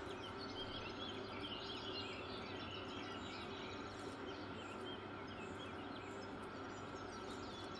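Faint bird chirps over a steady background hum.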